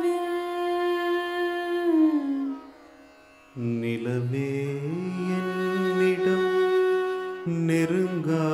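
Carnatic vocal music: a high voice holds one long note that slides down and fades out about two and a half seconds in. After a short near-quiet pause, a lower voice starts singing a line that steps between notes.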